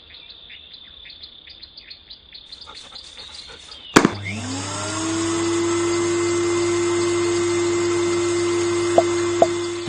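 eufy H11 cordless handheld vacuum cleaner: a few light clicks of handling, then a click as it is switched on about four seconds in, the motor spinning up within a second to a steady hum with rushing air, cut off near the end.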